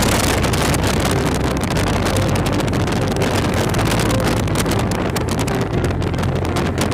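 Touring motorcycle riding at road speed: wind rushing loudly over the microphone, with the engine running steadily underneath.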